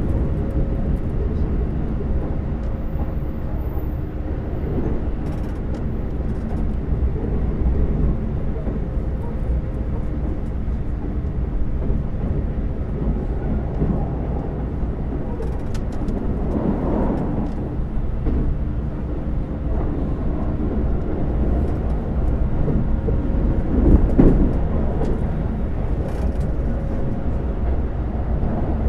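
Running noise inside a Keikyu 2100-series electric train at speed: a steady rumble of wheels on rails with faint steady tones. It swells louder twice in the second half.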